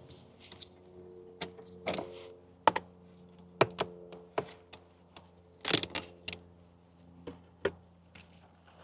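Gear being handled and set in place: irregular knocks, clicks and thunks, a dozen or so, over a steady low hum.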